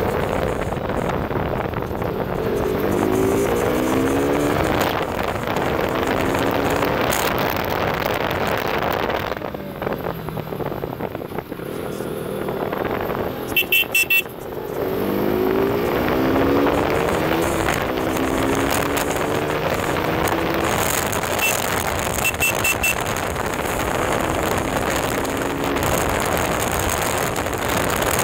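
KTM RC 200's single-cylinder four-stroke engine accelerating hard through the gears, its pitch rising and dropping back at each upshift. It eases off in the middle while a horn gives a few quick toots. Then it pulls up through the gears again, with a few more short horn beeps later on.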